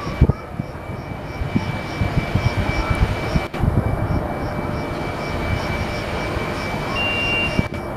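Trenitalia E.464 electric locomotive with double-deck coaches, heard as a steady high whine over a rumble with irregular low knocks. A second, slightly higher tone joins briefly near the end.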